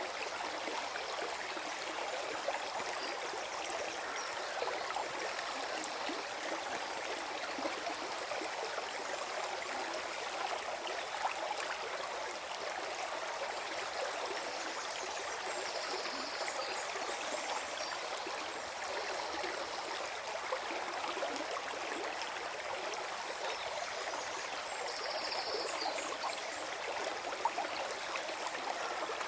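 Forest stream flowing and gurgling steadily over stones.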